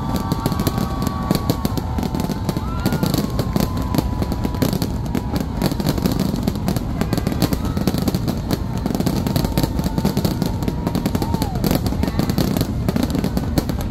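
Aerial fireworks finale barrage: a dense, unbroken run of shell bursts, bangs and crackling, with no gaps.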